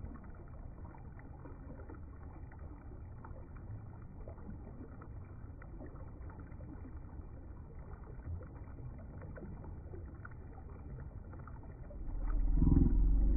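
Shallow river water running over rocks and gravel in a riffle, a steady rushing. About twelve seconds in, a much louder, low, pitched sound comes in over it.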